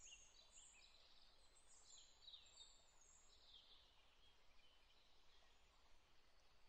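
Near silence: faint bird chirps over a low hiss, mostly in the first half.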